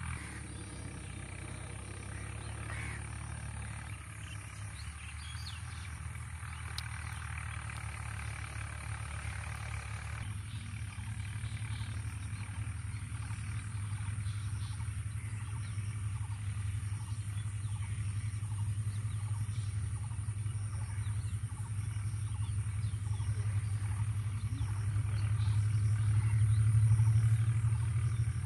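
Low, steady diesel rumble of an approaching train's EMD GT42AC locomotive, growing gradually louder and loudest near the end.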